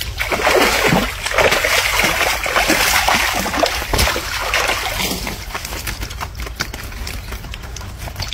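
Water splashing and sloshing as a landing net is swept through shallow water to scoop up a fish. The splashing eases after about five seconds into scattered drips as the net comes out of the water.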